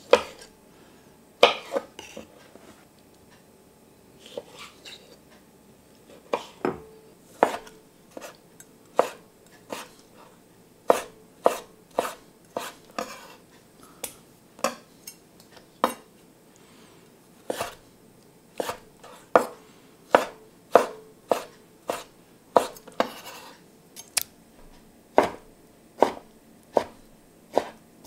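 Kitchen knife cutting peeled tomatoes on a wooden chopping board, each cut ending in a sharp knock of the blade on the board. A few scattered knocks at first, then a steady run of about two cuts a second.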